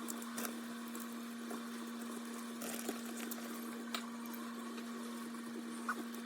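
A steady low hum on one pitch over a faint hiss, with a few small clicks and taps.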